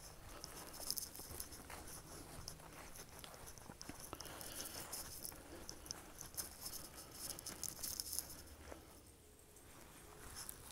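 Footsteps crunching and rustling through dry fallen leaves, an irregular crackle of steps that thins out for a moment near the end.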